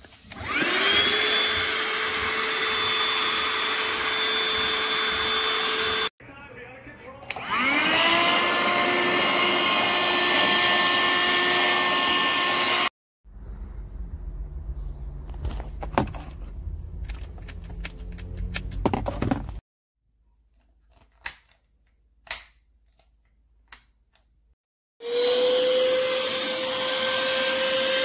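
Fityou cordless handheld vacuum cleaner switched on three times, its small motor spinning up with a rising whine each time and then running steadily. Between the runs there is a quieter stretch of low hum with scattered clicks, then near silence with a few clicks.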